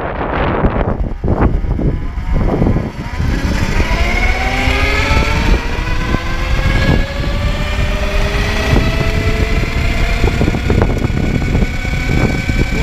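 Zero MX electric motorcycle accelerating: the whine of its electric drivetrain rises steadily in pitch from a few seconds in and levels off near the end as it holds speed. Under it is a heavy rush of wind on the microphone.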